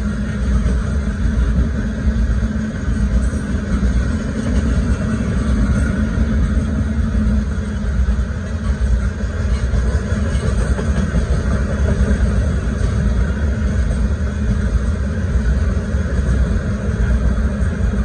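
Loaded limestone cars of a Union Pacific freight train rolling past close by: a loud, steady rumble of steel wheels on the rails.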